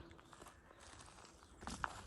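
Footsteps crunching in snow on a woodland path, a quiet step or two and then a louder crunching step near the end.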